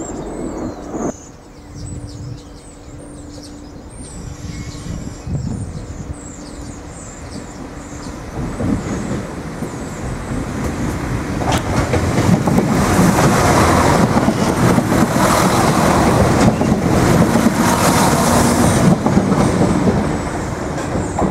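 Irish Rail 22000 class diesel multiple unit approaching and running past on the line: engine and wheel-on-rail noise build from about a third of the way in, are loudest for several seconds as the train goes by, then fade near the end.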